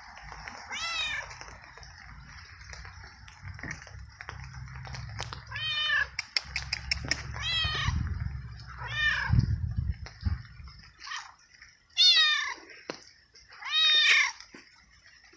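Young tabby cat meowing repeatedly, about seven separate meows, each rising and then falling in pitch. The last two, near the end, are the loudest.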